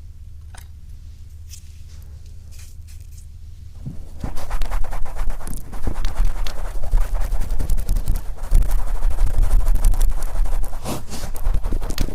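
A wet, oiled cotton swab rubbing over the outer ear of a binaural microphone, heard as close-up scratching and scraping. A few light scratches come first; about four seconds in it becomes louder, dense continuous rubbing.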